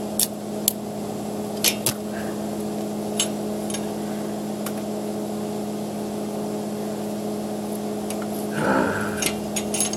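Arc welder running a weld on steel: a steady buzzing arc with a few sharp crackles and pops.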